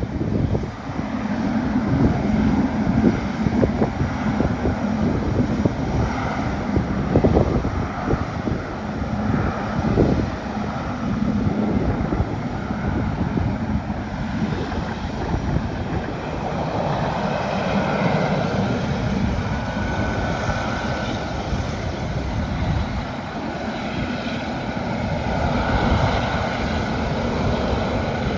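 Jet engines of a Boeing 777-300ER (GE90-115B turbofans) running steadily, with a faint whine coming in over the second half. Wind buffets the microphone throughout.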